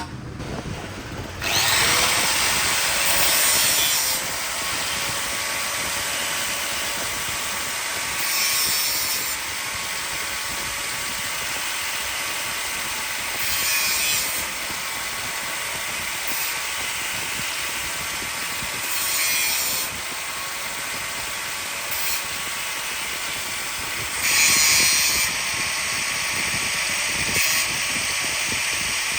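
A power tool running steadily in a shock absorber repair shop, with a louder hissing surge about every five seconds as it cuts or works the part.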